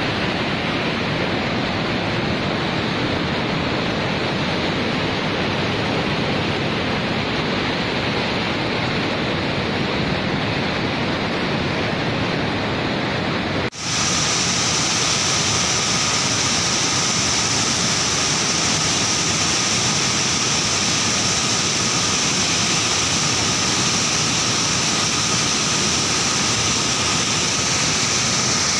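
Steady rush of fast-flowing water, a torrent of floodwater. About halfway through it cuts abruptly to another stretch of rushing water that sounds brighter and hissier, with a faint steady whine.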